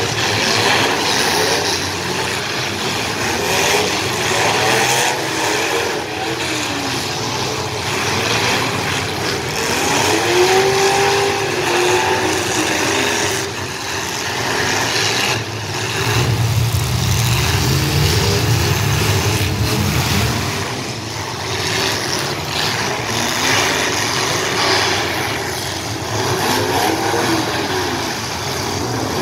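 Many demolition-derby car engines running and revving together in a continuous din, their pitches rising and falling as the cars push and ram one another, with a heavier low rumble partway through.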